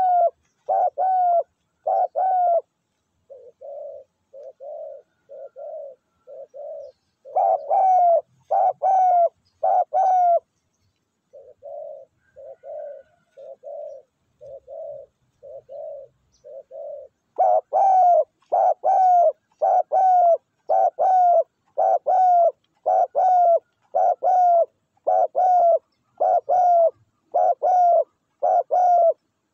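Spotted doves cooing in long runs of repeated notes. Runs of loud coos, a little over one a second, alternate with runs of softer, lower, quicker coos, about two a second.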